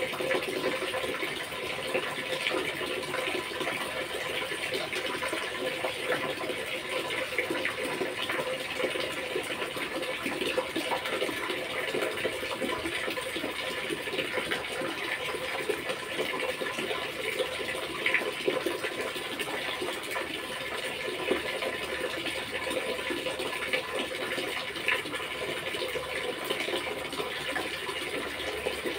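Steady running or splashing water, an even rushing hiss with small sharp ticks scattered through it.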